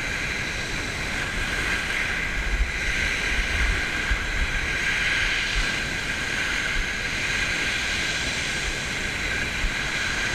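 Small waves breaking and washing up a shingle beach, a steady noise of surf on pebbles, with uneven wind rumble on the microphone.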